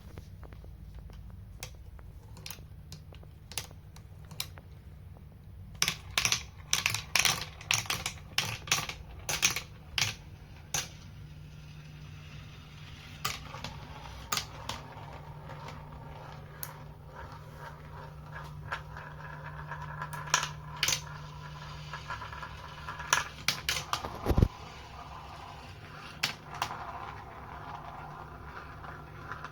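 Glass marbles clicking and rattling down a plastic Quercetti Migoga marble run track, with a dense stretch of clatter around six to eleven seconds in, then a steadier rolling sound with scattered clicks and a single dull thump about twenty-four seconds in. A steady low hum lies underneath.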